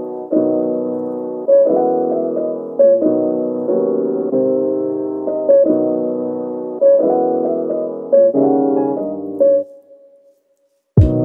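Background piano music: chords struck about every second and a half, each dying away before the next, fading out near the end. After a moment of silence a new, percussive music track begins.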